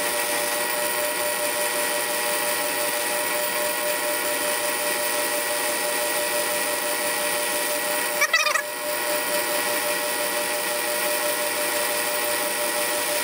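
South Bend Model A metal lathe running under power with a steady whine from its motor and belt drive while it turns down a steel nut. A brief high warbling squeal comes about eight seconds in.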